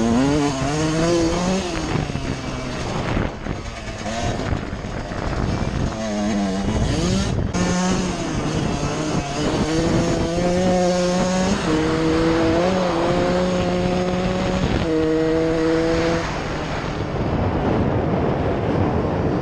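1999 Suzuki RM 125's single-cylinder two-stroke engine being ridden hard: revs rise and fall as the throttle is worked and it runs through the gears, holding fairly steady revs in stretches, then drops to a rougher off-throttle sound near the end.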